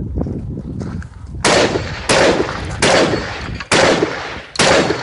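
Five gunshots in quick succession, spaced a little under a second apart, each with a short ringing tail, as a competitor engages steel targets.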